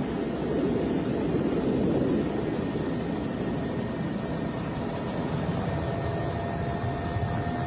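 Helicopter running steadily: rotor and engine noise with a thin steady whine above it.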